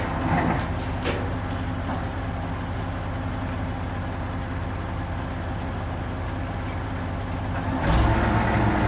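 Truck crane's diesel engine running steadily, with a couple of short knocks about a second in. About eight seconds in the engine grows louder under load and more knocks follow.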